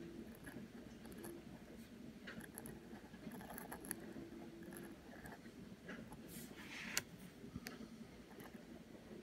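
Pointed dip-pen nib scratching faintly across paper in short strokes as cursive letters are written, with one sharp click about seven seconds in.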